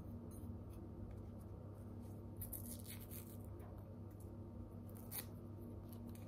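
Faint crinkling of a small white paper or plastic packet being picked open with the fingers, a handful of soft crackles with the clearest about five seconds in, over a low steady hum.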